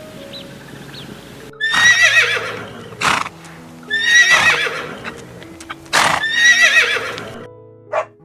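Horse whinnying three times, each call starting high and shaking down in pitch, with short noisy blasts between the calls.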